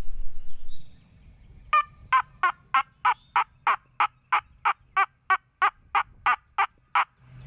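A long series of about seventeen evenly spaced hen-turkey yelps, about three a second, starting near two seconds in. A low rustling noise fades out in the first second.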